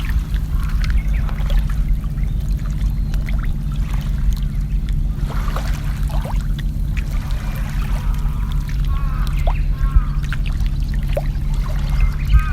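Water trickling and dripping, as from a kayak paddle, over a steady low hum. A few short chirping calls come in the second half.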